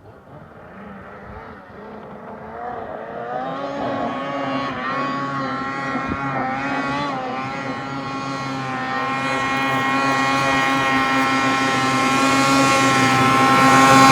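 Two-stroke snowmobile engine held at high revs, approaching from far off and growing steadily louder; its pitch wavers at first, then holds steady. The sled is being run flat out to keep it skipping across open river water.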